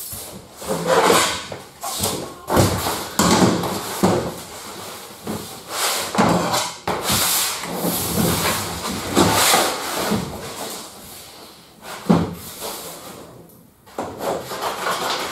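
A roll of thick lining paper being unrolled, slid and handled on a pasting table, rustling and crackling in irregular bursts, with a knock about twelve seconds in.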